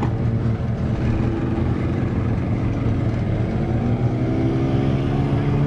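Boat outboard motor running at low speed, its revs rising about four seconds in, then holding steady at the higher pitch.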